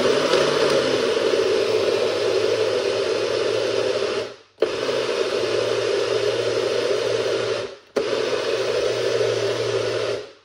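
Countertop blender running at speed, blending a jug of fruit and water into juice. It runs in three stretches, stopping briefly about four seconds in and again just before eight seconds, then cuts off at the end.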